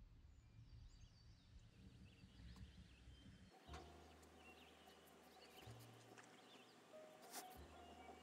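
Near silence: faint low hum and background noise, with a few faint high chirps and ticks.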